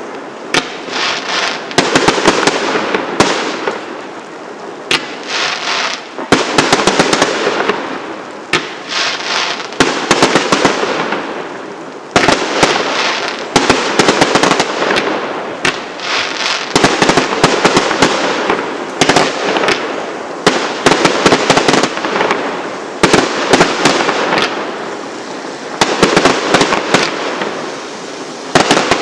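Aerial fireworks display: shells bursting in quick succession with dense crackling, coming in waves every couple of seconds.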